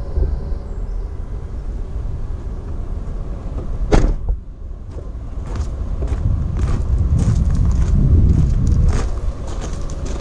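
A van door slams shut with a single loud knock about four seconds in. Footsteps then crunch irregularly across gravel, with wind rumbling on the microphone.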